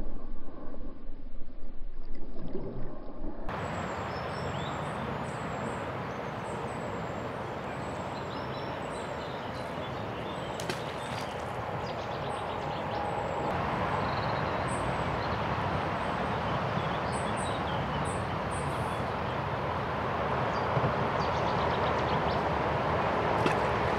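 Steady road traffic noise from a nearby road, with small birds chirping over it. For the first few seconds, muffled water sloshing heard through an underwater camera.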